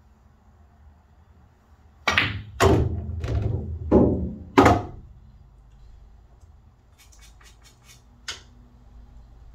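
Pocketed pool ball dropping into the table's gully ball return and rolling down the channel: five heavy clunks about half a second apart, each ringing briefly. Near the end come a quick run of faint clicks and one sharper click.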